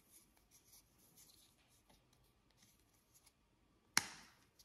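Fingers handling a plastic tube of glitter with faint rustling, then a single sharp snap about four seconds in as its cap is opened.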